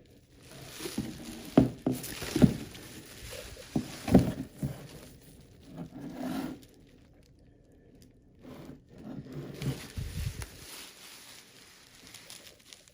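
Hands unpacking an orchid shipment: packaging rustling and scraping, with a few sharp knocks in the first four seconds and a short pause about halfway.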